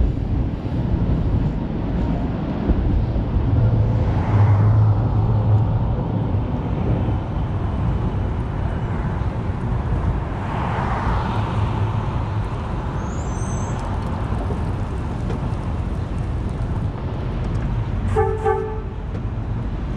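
Vintage streetcar running along the street with a steady low rumble, its hum swelling briefly twice. Near the end comes one short horn toot.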